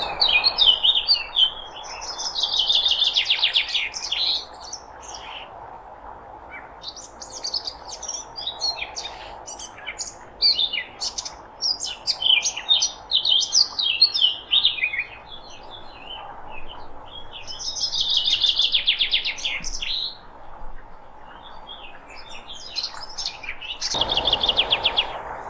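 Several songbirds singing and chirping, with short high chirps throughout and fast trilled phrases of rapidly repeated notes about three seconds in, again near eighteen seconds, and near the end.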